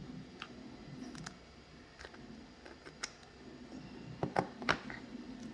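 Small clicks and light knocks of 3D-printed plastic quick-lock parts being handled, with a quick run of louder sharp clicks near the end.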